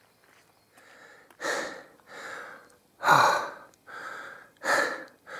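A man's heavy breathing close to the microphone, out of breath from climbing a steep track: from about a second in, three loud breaths out, each with a quieter breath in between.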